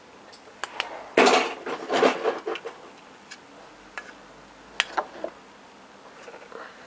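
Clicks and clatter from handling a metal elevator pushbutton panel: a few sharp clicks, a louder burst of rattling and rubbing a little over a second in, then scattered single clicks.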